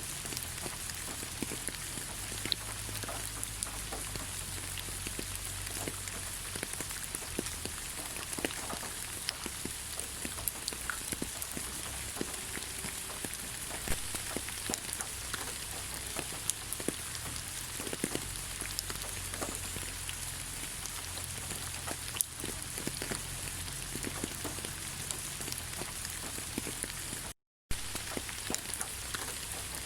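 Steady rain falling on leaves: an even hiss with many separate drops ticking on the foliage. The sound cuts out completely for a fraction of a second near the end.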